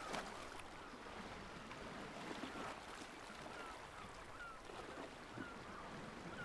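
Faint seaside ambience: a soft, steady wash of the sea, with short falling bird calls repeating about every half second.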